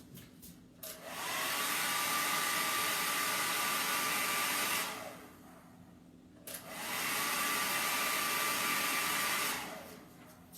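Electric hair dryer switched on twice, each time running for about four seconds with a steady whoosh and a motor whine that rises as it spins up and falls away as it is switched off.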